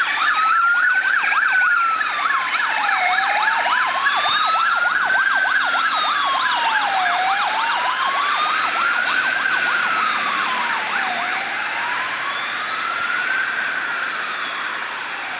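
Fire truck siren: a slow wail rising and falling about every four seconds, with a fast yelp sounding over it that drops out a little past halfway. The whole sound slowly fades near the end.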